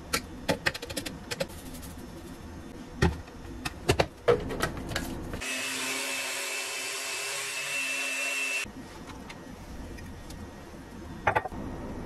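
Countertop blender running for about three seconds, blending banana and milk with a steady whirring and a thin high whine, then stopping abruptly. Before it, a seasoning shaker is tapped in quick clicks and a few knocks follow; one more knock comes near the end.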